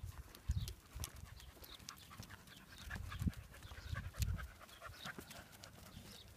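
A dog panting while walking on a leash, with scattered light clicks and a few low thuds.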